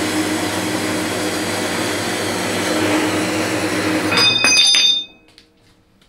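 Horizontal metal-cutting bandsaw running steadily as its blade saws through a flat metal bar. About four seconds in, a few sharp metallic clinks ring out as the cut finishes and the offcut comes free, and the saw's noise cuts off suddenly about a second later.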